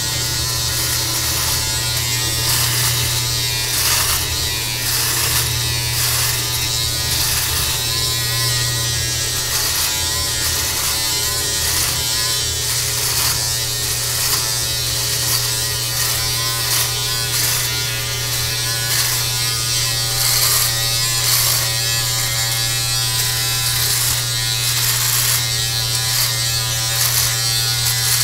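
Electric beard trimmer buzzing steadily as it cuts through a long full beard, with a brief rasp on each stroke through the hair, roughly once or twice a second.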